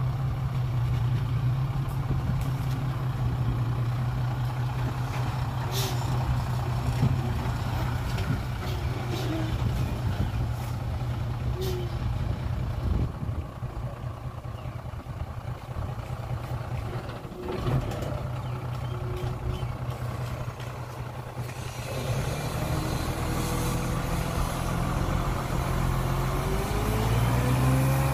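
Hyundai dump truck's diesel engine running as the loaded truck reverses and stops. From about 22 s the engine note rises and climbs as it drives the hydraulic hoist that tips the soil-filled bed.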